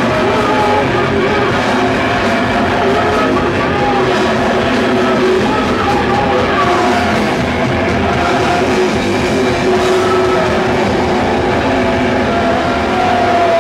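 A hardcore band playing live: loud, distorted heavy music as a dense, unbroken wall of sound, with a falling pitched glide near the end.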